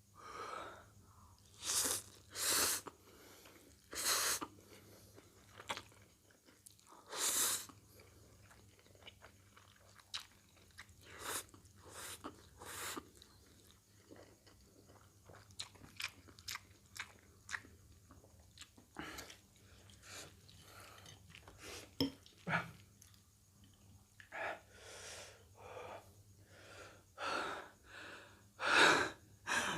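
Close-miked chewing of spicy instant fried noodles, with several loud breathy hisses and gasps, most of them near the start and near the end, as the eater reacts to the chili heat.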